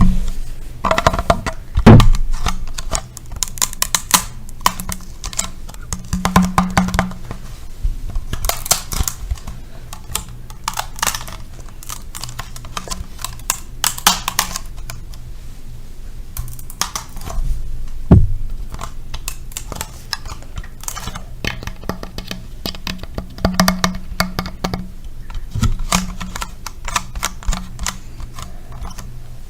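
ASMR tapping and scratching on objects: rapid, irregular clicks and taps with occasional louder knocks, over a low steady hum.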